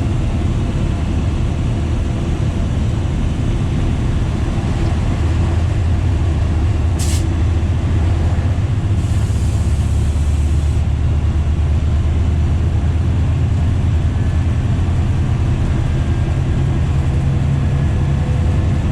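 Diesel train engine running steadily under way, heard from the driver's cab as a loud low drone. A sharp click comes about seven seconds in, and a short hiss follows about two seconds later.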